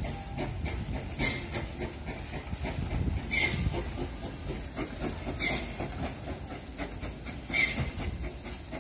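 Steam locomotive 310.0134, a small ČSD class 310.0 tank engine, running, with a sharp hiss of steam about every two seconds over a low rumble.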